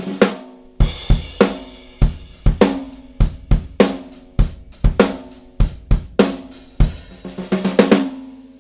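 Snare drum with a Code Signal single-ply coated (14 mil) 14-inch head at medium tuning, played hard in a groove with deep kick-drum thumps. A roll swells into an accent at the start, then steady strokes ring with an open, controlled tone, and a quick fill of snare hits comes just before the end.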